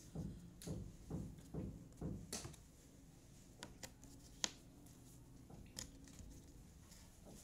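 Jigsaw puzzle pieces being handled and fitted on a tabletop: a soft, regular patter about twice a second over the first two seconds, then scattered light clicks and taps, the sharpest about four and a half seconds in.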